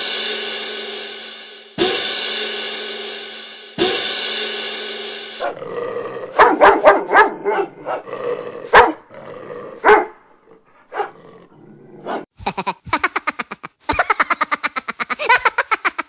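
Three loud ringing hits about two seconds apart, each dying away slowly, then a dog barking: scattered barks in the middle, then a fast run of barks near the end.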